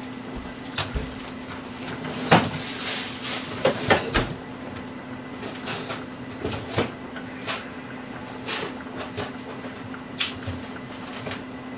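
Someone moving about a kitchen off to one side, with scattered knocks and clatters of cupboard or storage doors being opened and shut and things being handled, the loudest about two seconds in. A steady low hum runs underneath.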